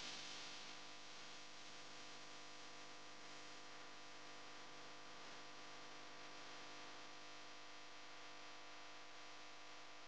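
Near silence: a faint, steady hiss with a low hum running under it.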